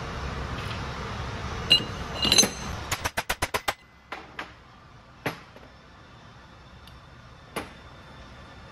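Steel transmission parts and a bearing driver tube clinking and knocking on a steel workbench: a couple of ringing metal clinks, then a quick run of about eight sharp taps, then a few single knocks spread out. Under them is a steady background noise that drops off after about four seconds.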